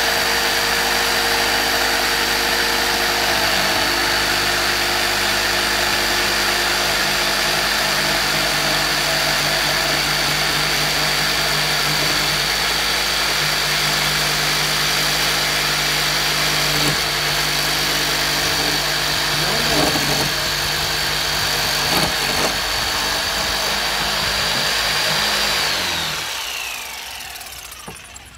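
Tramontina electric jigsaw running steadily as its blade cuts through a pine board, with a steady high whine over the motor. About two seconds before the end it is switched off and winds down, its pitch falling.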